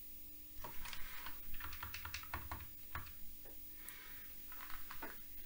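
Keys clacking on a Commodore Plus/4 keyboard: a quick run of presses in the first few seconds, then a few more near the end.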